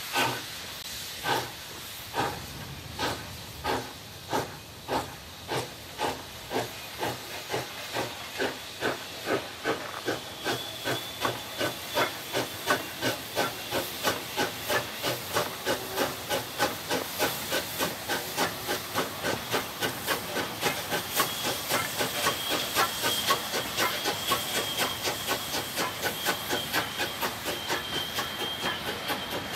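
DSB class F steam tank locomotive No. 654 pulling away with its train: exhaust chuffs start about one a second and quicken steadily as it gathers speed, over a steady hiss of steam.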